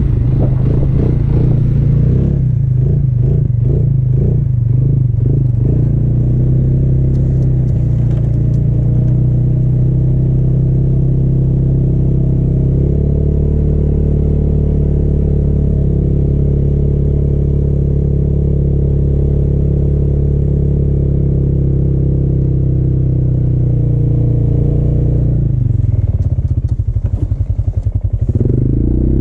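Snowmobile engine running under load while pushing through deep snow. The revs pulse for the first few seconds, then hold steady, and dip near the end.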